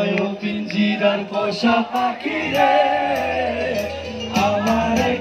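Live music played loud over a PA system: a singer's voice with a long held note, then bass and drums come in about four seconds in with a steady beat.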